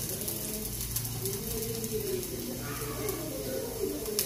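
Garlic sizzling and crackling in hot oil in a frying pan, with a low coo-like sound rising and falling twice over it.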